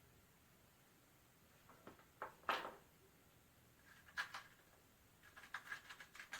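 A few light clicks and knocks, as of metal parts or tools being handled on a bench, the loudest about two and a half seconds in and a quick run of them near the end.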